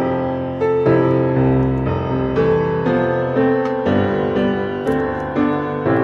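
Background piano music: a melody of held notes changing every half second or so.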